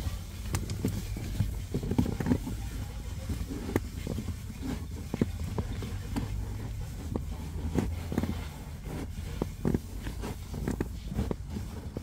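Handling noise as a pleated cabin air filter is bent and pushed into its housing behind the glove box: irregular scrapes, rustles and light knocks of the filter frame against the plastic, over a low steady hum.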